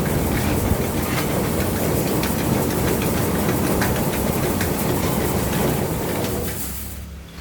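A 1-ton feed mill running loudly and steadily, its motor humming under a dense rattle of feed going through the machine; the noise dies away near the end.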